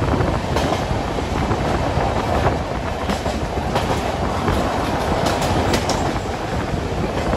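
Passenger train coach running along the track, heard from its open door: a steady rumble of wheels on the rails, with a few sharp clacks as the wheels cross joints in the track.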